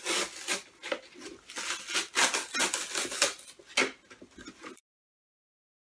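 Packaging being handled and torn open: an irregular run of crackles and rustles. It cuts off suddenly about three-quarters of the way through into dead silence.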